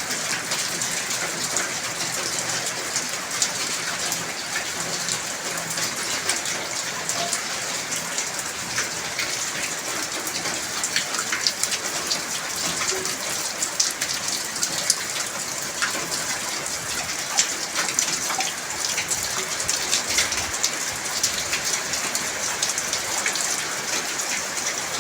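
Heavy rain falling steadily, with a dense patter of individual drops striking close by.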